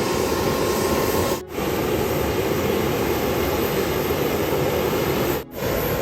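Airliner's jet engine running steadily on the ground, a constant rush with a faint high whine in it. Only one of the two engines is running; the other has failed to start. The sound drops out abruptly for a moment twice, about a second and a half in and near the end.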